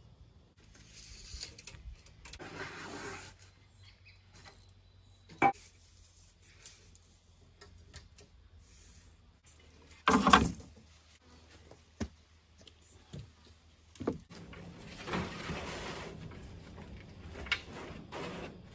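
Materials being handled and shifted around a woodshed: a run of scrapes and rustles, with separate knocks and clatters. The loudest are a sharp knock with a short ring about five seconds in and a heavier clatter about ten seconds in.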